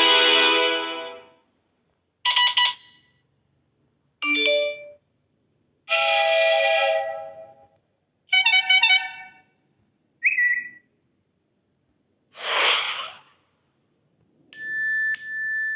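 A run of different iPhone notification tones played one after another, each under about a second long with short silences between. One tone fades out about a second in, then seven more follow about every two seconds: mostly short chimes and bell-like notes, one a whoosh, and the last two thin high tones.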